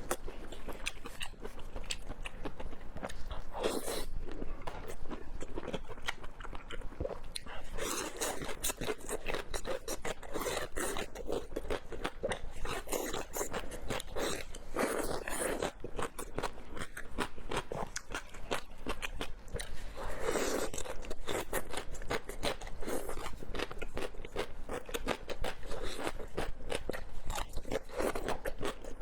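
Chewing and crunching of food in the mouth: a dense run of crisp clicks and crackles.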